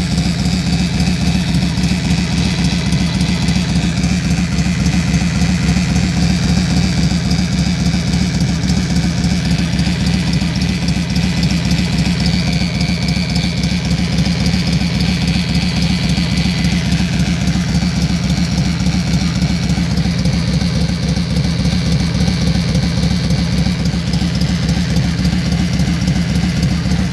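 Yamaha XV1600 Wild Star/Road Star's air-cooled V-twin engine idling steadily, with a rapid even pulse. The owner calls it a bad engine sound.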